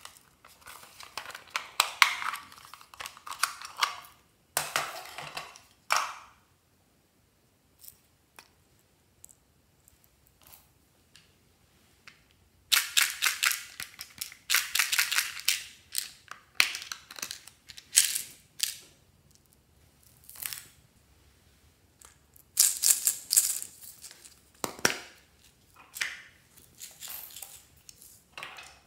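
Hands handling hard plastic toys, giving bursts of crackly rustling and clicking with quiet gaps between them.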